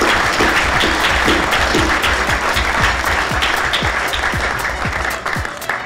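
An audience applauding, the clapping fading out near the end, over electronic music with a quick steady beat of low kick drums that is left playing on its own.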